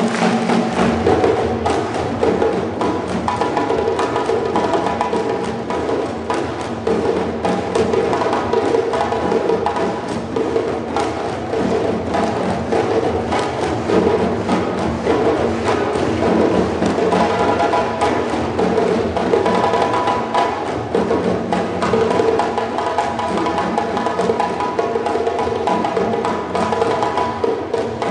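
Ensemble of djembe hand drums playing together in a steady, fast, continuous rhythm.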